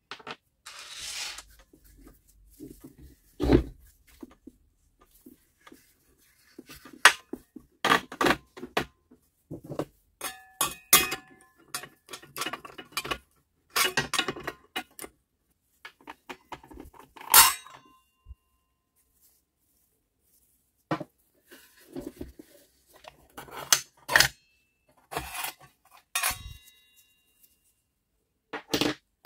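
Small metal parts and tools of a cordless circular saw being handled during disassembly: irregular clicks, clinks and knocks, a few with a short metallic ring.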